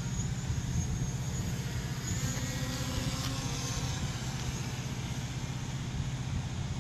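Steady low rumble of road vehicles, with no clear change throughout.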